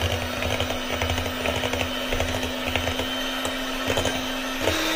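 Electric hand mixer running at low speed, its beaters whipping chilled whipping cream and clicking against the bowl. About four and a half seconds in, the motor's note jumps higher and the clicking stops.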